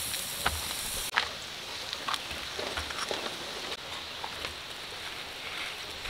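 Rushing water of a valley stream, a steady hiss with scattered small ticks and splashes. The high part of the hiss drops off abruptly about a second in.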